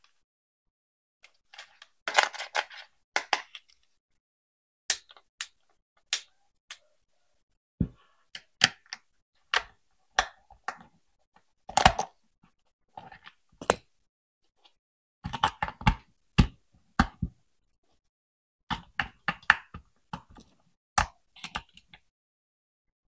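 Hands unboxing a remote-control toy car: scattered sharp clicks and knocks of hard plastic, with a few short rustling spells of packaging. No motor is running.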